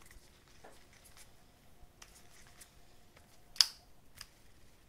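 KastKing Spartacus baitcasting reel being worked by hand: faint scattered clicking, with one sharp click about three and a half seconds in and a smaller one shortly after.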